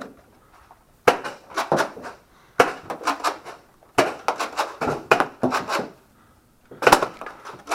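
Nerf Rival Apollo blasters firing and being re-primed, with the foam balls clacking and thudding off walls and furniture. The sharp clacks come in four quick clusters, with short pauses between them.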